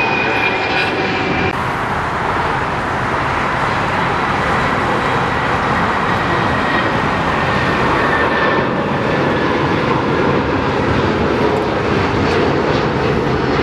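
Jet airliners departing at takeoff thrust: a steady, loud engine roar with a faint high whine. An abrupt cut about a second and a half in switches from a Boeing 767 climbing out to a Boeing 757 lifting off and climbing away.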